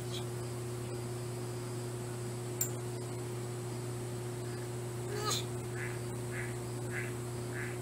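Steady low hum, with a sharp click about two and a half seconds in. About five seconds in a brief squeak slides down in pitch, followed by a run of short animal calls about twice a second.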